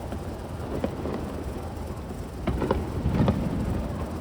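Fireworks going off: a few sharp bangs and crackles, the biggest a little past halfway, over a steady low rumble.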